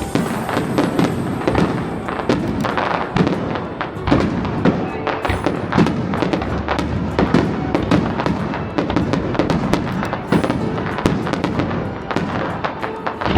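Fireworks display in full barrage: a dense, continuous run of rapid bangs and crackles with hardly a gap.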